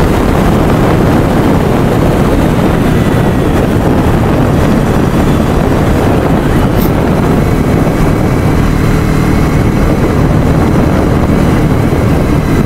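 Wind noise rushing over the microphone with a vehicle's engine running steadily underneath while travelling along a road.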